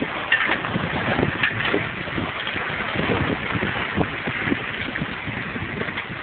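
Wind buffeting the microphone on an open boat at sea, over the wash of choppy water, with irregular short knocks throughout.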